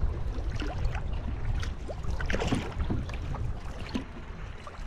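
Canoe paddle strokes splashing and dripping in choppy lake water, with water lapping at the hull, over a steady low rumble of wind on the microphone.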